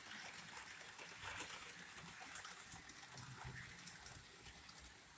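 Faint hiss with light clicking and a weak low hum at times: electric model trains running slowly on the layout's track.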